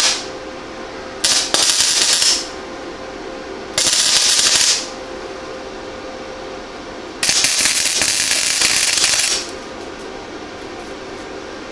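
Century FC 90 flux-core wire-feed welder tacking two pieces of 22-gauge sheet steel: three bursts of crackling arc, the first two about a second each and the last about two seconds, with a steady faint hum in the pauses between tacks.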